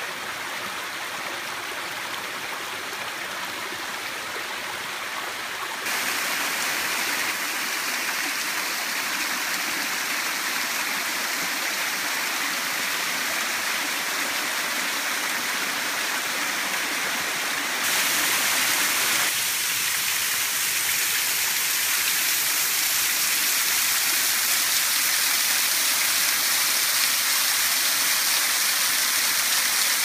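Small waterfall cascading over rock ledges: a steady rush and splash of falling water. The sound grows abruptly louder twice, about six seconds in and again past the halfway point, and turns brighter and more hissing as the water spatters onto the rocks.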